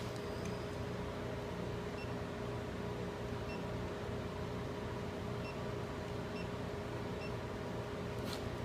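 Steady electrical hum with one constant tone over a faint hiss, with a few faint high blips and a sharp click at the very end.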